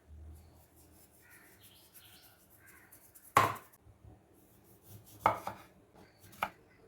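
A knife chopping on a cutting board: four sharp strikes, one loud one about a third of the way in and three more close together near the end, with birds chirping faintly behind.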